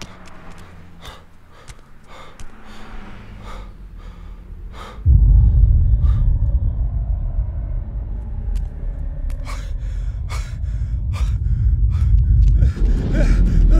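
A deep rumbling drone, horror-film sound design, comes in suddenly about five seconds in and holds. Before and under it are scattered footsteps on pavement, and a sharp gasp comes near the end.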